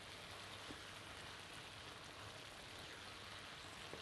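Chicken and tomato filling cooking in a pan on the stove: a faint, steady sizzling hiss with a couple of tiny pops.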